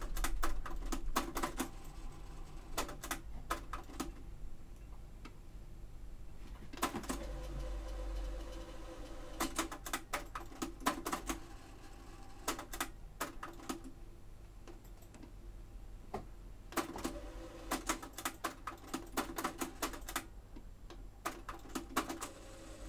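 Pioneer CT-P720WR cassette deck clicking: bursts of quick sharp clicks from its transport buttons and mechanism as it is switched between functions, with a faint steady hum in places. The deck has been re-belted and its mechanism still keeps stopping and will not fast-forward or rewind.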